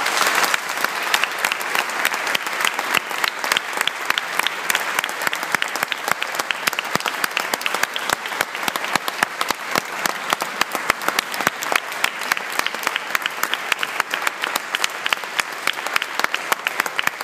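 Audience applauding, loudest in the first couple of seconds, then clapping on steadily.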